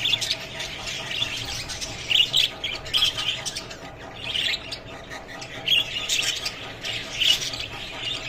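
Budgerigars chirping and chattering in a string of short, high calls.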